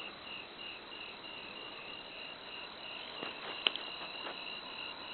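Cricket chirping steadily, about three short chirps a second, with a single sharp click a little past halfway.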